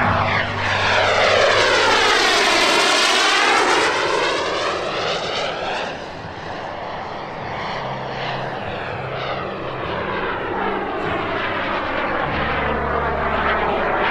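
JetCat P400 Pro model turbine of a large scale Fiat G.91 RC jet running hard in flight, a whooshing jet roar with a sweeping, phasing quality as it passes. Loudest for the first few seconds, then a little quieter as it climbs away.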